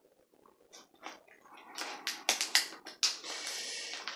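Shiny plastic mailer package crinkling and crackling in the hands as it is pulled at to be opened, with sharp crackles from about a second and a half in and a steadier rustle about three seconds in.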